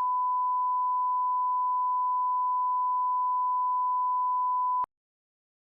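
Steady 1 kHz sine test tone of the kind used as a reference tone at the head of an edit, cutting off abruptly with a click just under five seconds in.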